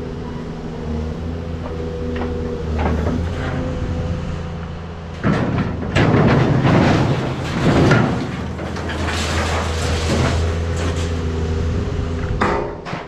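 Vehicle engine idling steadily, with scattered knocks and a loud burst of rattling and scraping from about five to eight seconds in.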